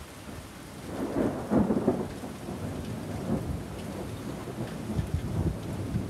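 Heavy rain pouring steadily on pavement. A thunder rumble swells about a second in, peaks near two seconds, then rolls on more quietly.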